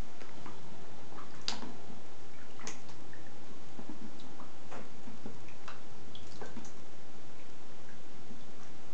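Pet rats wading and dipping in a shallow plastic tub of water to fish out peas: irregular small splashes, drips and light clicks.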